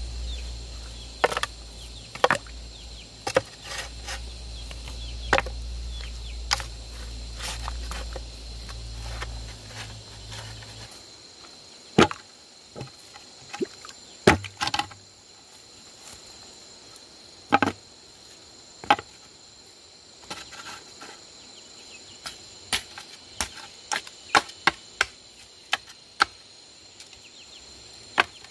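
Bamboo being chopped: single sharp strikes spaced a few seconds apart, coming faster and closer together near the end. A steady high insect drone sounds behind them, and a low rumble stops about a third of the way in.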